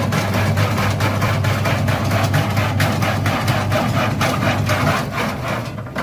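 Taro-stick slicing machine running: a steady motor hum under evenly spaced blade clacks, about four a second. Near the end it dies away.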